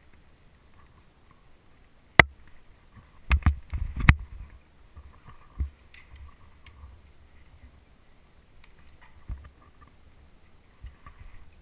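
Rope and metal rappel gear handled close to the microphone, giving sharp clicks and knocks: a single loud one about two seconds in, a quick cluster about a second later, then a few fainter ones.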